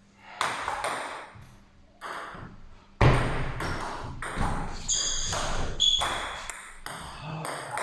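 Table tennis rally: the ball clicks sharply off the rackets and the table, a few spaced hits at first, then a quick back-and-forth exchange from about three seconds in. Two brief high squeaks come midway.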